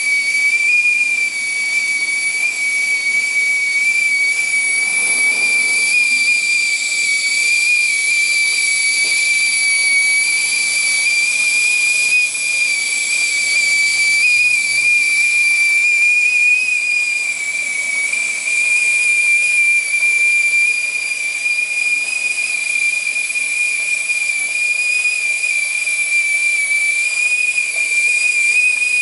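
Whistling kettle's steam whistle sounding steadily at the boil: one high, slightly wavering tone with an airy steam hiss behind it.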